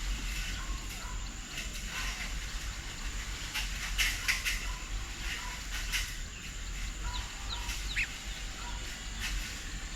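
Birds at a garden feeding table calling, with many short chirps, busiest about four seconds in, and a few brief sliding whistles near the eight-second mark, over a steady low rumble.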